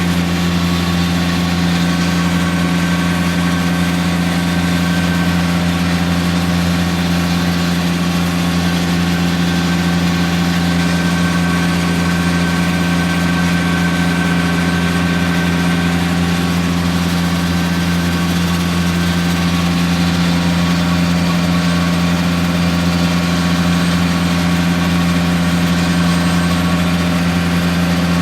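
An engine running steadily at one constant speed: a loud, unchanging low hum.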